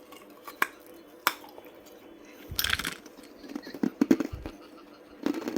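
Hard ice cracking and crunching: a couple of single sharp clicks, then a short crackly burst about halfway in and a quick run of cracks soon after.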